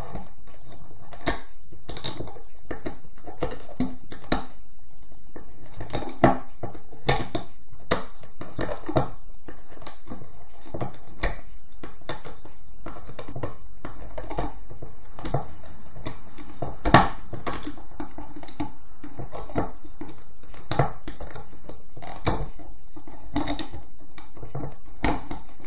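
Irregular small clicks and snaps of rubber loom bands being lifted off the plastic pins of a loom with a hook, with a louder snap now and then.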